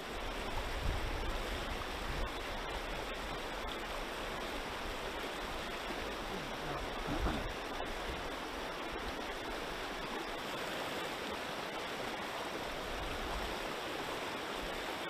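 Lower Kings River flowing steadily, a constant rush of moving water, with a few brief low bumps along the way.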